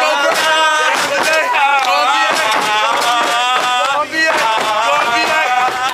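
A group of men's voices chanting and singing in unison, with the stomps and claps of a step routine knocking through it.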